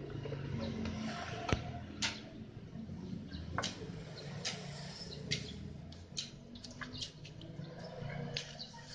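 Scattered light taps, knocks and scrapes, irregularly spaced, as paintbrushes dab and drag across rough wooden planks, over a low steady background hum.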